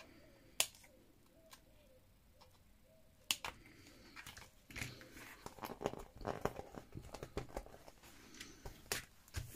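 Hands knotting an elastic band on a handmade notebook cover: two sharp clicks, then from about halfway on a few seconds of dense rustling and tapping as the elastic is pulled and tied.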